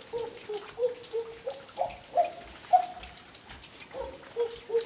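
Water dripping: short, irregular plinks of drops falling into water, at a few different pitches, several a second.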